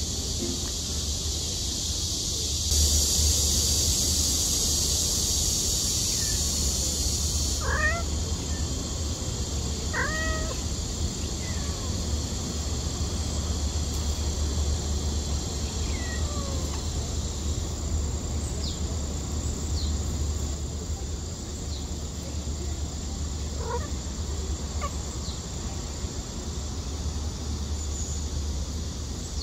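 Young stray cat meowing several times, short calls that rise and fall in pitch, calling anxiously. A steady high hiss runs underneath.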